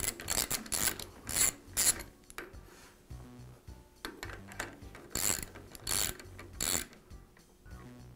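Socket ratchet wrench clicking while tightening a second nut down against the first on a drill press spindle: a run of about four sharp clicks, a pause, then another run of about four, roughly two clicks a second.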